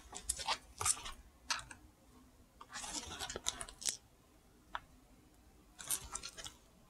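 Coated work gloves rubbing and scraping against a sneaker's knit upper and foam sole as the shoe is turned over in the hands: short, scratchy rustles in several small clusters, the longest about three seconds in.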